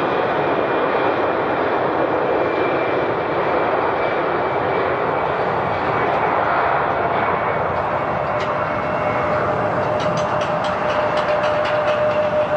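Jet airliner engines running steadily, a broad rushing noise with a high steady whine that grows stronger in the second half. Near the end a rapid run of light clicks sets in.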